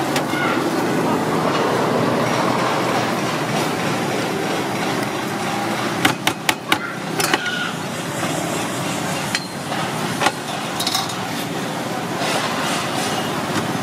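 Cleaver pressed flat onto peeled bananas in a plastic sheet to flatten them for fritters, knocking on a wooden chopping board: a quick cluster of sharp knocks about six seconds in, then a few single knocks later. Steady street noise runs underneath.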